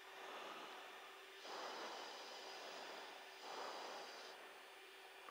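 Faint breathing into an aircrew oxygen-mask microphone on an open intercom: two breaths, about one and a half and three and a half seconds in, over a steady hiss and a thin hum.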